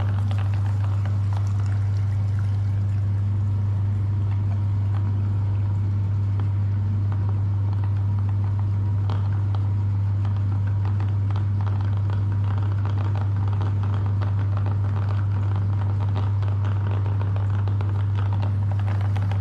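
Electric meat grinder running with a steady low motor hum, with wet squishing and crackling as jelly is forced through it.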